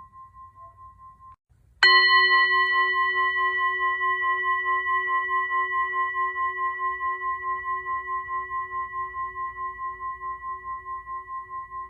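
A singing bowl struck once about two seconds in, after an earlier ringing tone dies away. It rings on in several steady tones, with a slow wavering beat, and gradually fades.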